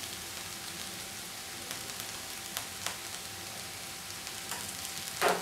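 Chopped vegetables sizzling in oil in a wok on a gas burner: a steady, quiet crackling hiss with a few small pops.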